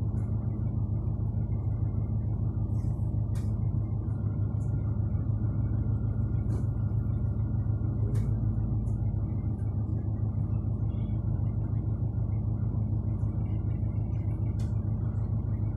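Steady low hum and rumble of a passenger train heard from inside the coach as it pulls into a station, with a few faint clicks scattered through.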